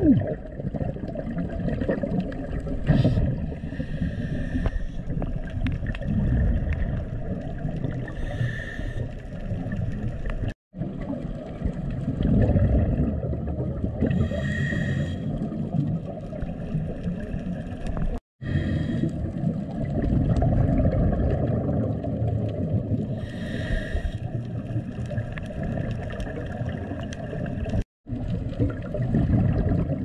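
Underwater sound picked up by a GoPro Hero 7 Black on a scuba dive: a steady low rumble of water around the camera, with a diver's regulator exhaust bubbles gurgling up in bursts about every four to five seconds. The sound cuts out completely for a moment three times.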